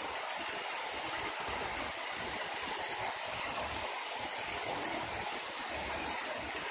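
Heavy rain pouring onto wet brick paving, a steady hiss of countless drops, with a sharp drip or splash about six seconds in.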